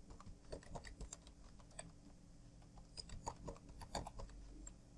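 Faint, irregular keystrokes on a computer keyboard, typed in quick short runs with brief pauses between them.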